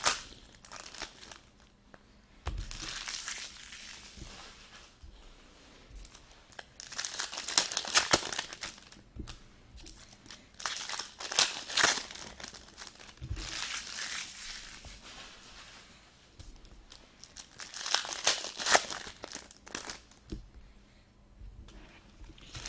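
Packaging of a hockey card box being opened: wrapper crinkling and tearing in several bursts a few seconds apart.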